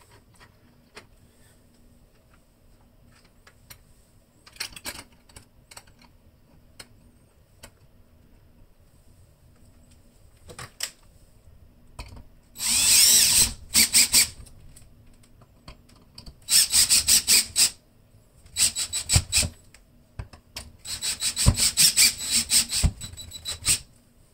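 Cordless drill driving the mounting-plate screws into a ceiling junction box, in about five short runs in the second half; the first run is the longest and loudest. Faint clicks of handling the metal plate and screws come before.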